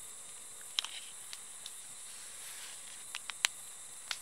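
Steady high-pitched hiss of night insects, with a handful of short sharp clicks and taps from food being pushed onto a wooden stick skewer. The loudest click comes about three and a half seconds in.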